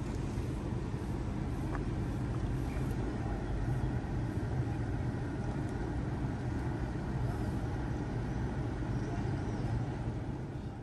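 Steady low engine rumble under a light hiss, fading near the end.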